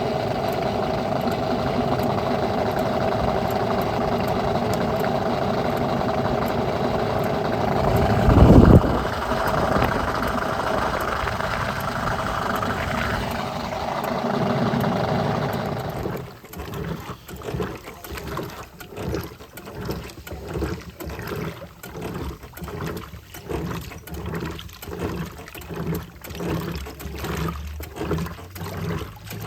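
Homemaker 7 kg top-load agitator washing machine spinning with a steady motor hum, with a loud thud about eight seconds in. A little past halfway the spin stops abruptly and the agitator starts stroking back and forth about once a second, sloshing water.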